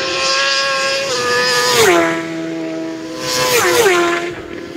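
Superbike racing motorcycles flat out at high revs, passing one after another. Each engine note drops sharply in pitch as the bike goes by: one pass about two seconds in, then two more close together.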